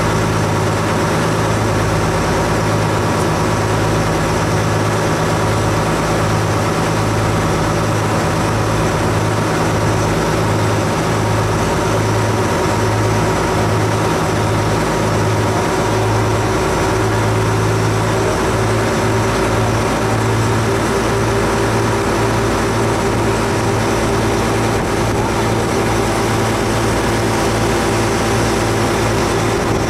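Ferry's engine running steadily under way: a loud, low throbbing drone whose tone shifts slightly about two-thirds of the way through.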